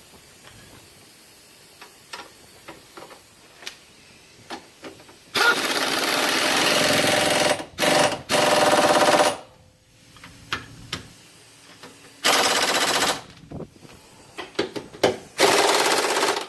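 Impact wrench hammering in four bursts, the first two about two and one and a half seconds long and the last two about a second each, driving bolts home. Faint clicks of hand tools come before the first burst.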